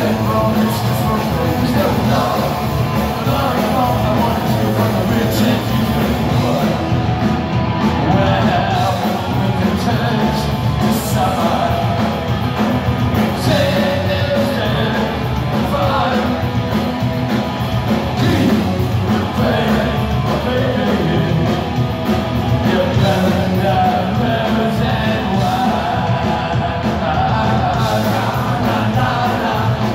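A punk rock band playing live, with a male lead singer over electric guitars, bass and drums, heard from within the audience.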